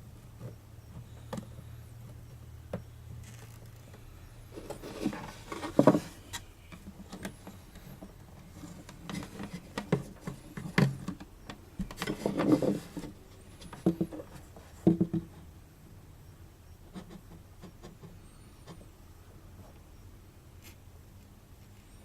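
Scattered knocks, clicks and rustling of tools and parts being handled on a workbench, busiest and loudest in the middle. A low steady hum stops about four seconds in.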